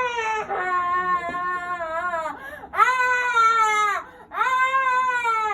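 Baby crying hard in three long wails, each a second or two, with quick breaths between them.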